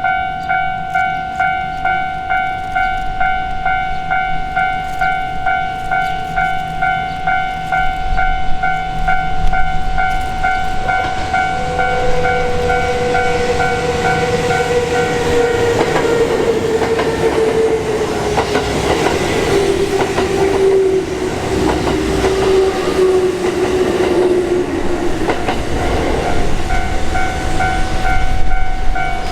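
Japanese level-crossing warning bell ringing in a steady repeating electronic ding-ding, about two rings a second. From about eight seconds in, an electric train's rumble builds and passes over it, with a motor whine that falls slowly in pitch. Near the end the bell is heard clearly on its own again.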